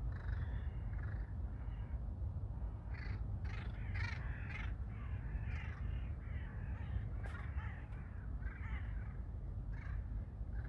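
Crows cawing repeatedly, several calls overlapping and busiest around four seconds in, over a steady low rumble.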